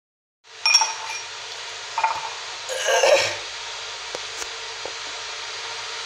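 A few light clinks and knocks of a spoon against a cut-glass tumbler, the first one ringing briefly, over a steady hiss.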